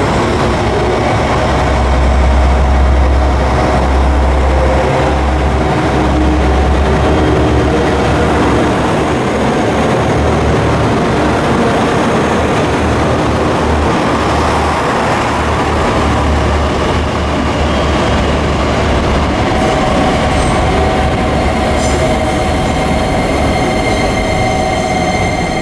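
JR Kyushu KiHa 71 'Yufuin no Mori' diesel railcar pulling out and running past along the platform, its diesel engines giving a deep, loud rumble. The rumble eases after about eighteen seconds as the last car passes.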